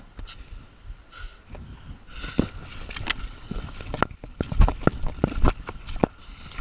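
Rushing, splashing whitewater around a kayak, with a string of sharp knocks that come thick and fast from about two seconds in, the heaviest in the middle.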